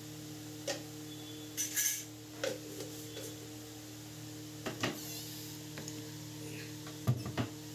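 Steel spoon and metal ladle clinking and scraping against a steel kadhai as salt is added to an egg curry and stirred: scattered sharp clinks, a quick run of them near the end, over a steady low hum.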